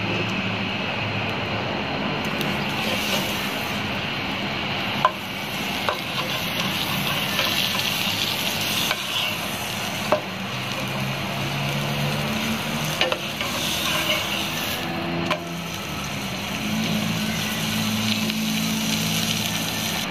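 Bread slice frying in butter in a nonstick pan, sizzling steadily, with a few sharp knocks of a wooden spatula as it presses and turns the slice.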